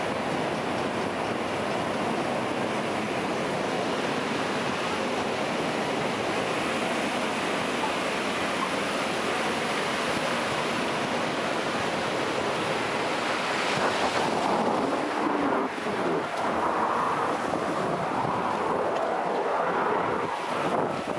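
Steady rush of water on a raft water ride, with wind on the microphone. About two-thirds of the way through it gets louder and more uneven as the round raft drops into the flume and spins down the water channel.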